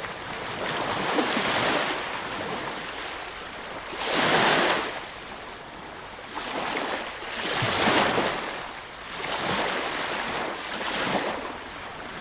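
Sea waves breaking and washing up a beach, the surf rising and falling in surges every couple of seconds. The biggest wave crashes about four seconds in.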